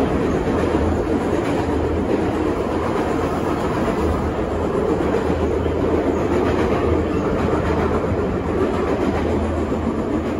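Moscow Metro Ezh3 subway car running, heard from inside the passenger saloon: steady, loud noise of the wheels on the rails with a low hum beneath.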